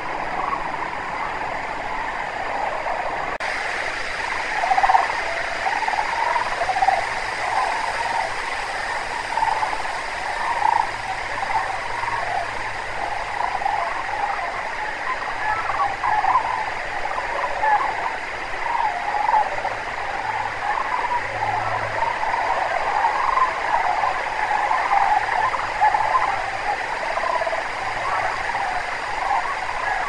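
A large flock of sandhill cranes calling together: a dense, continuous chorus of many overlapping calls.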